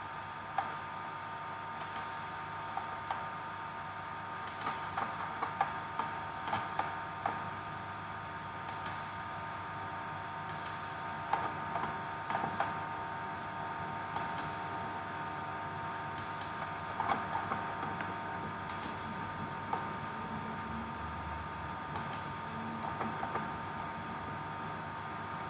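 Computer mouse clicks and keyboard keystrokes, scattered single clicks with short runs of quicker taps, over a steady hum.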